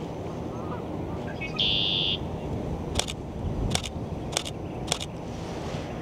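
A male red-winged blackbird sings once about a second and a half in: a couple of short notes, then a buzzy trill lasting about half a second. A little later, four sharp camera shutter clicks come roughly two-thirds of a second apart, from a Canon R8 firing single frames, over a steady low background rumble.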